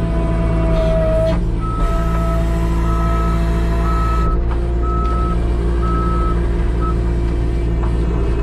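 New Holland 328 skid steer's engine running steadily, with its backup alarm beeping about once a second, six times, from about two seconds in, as the machine reverses.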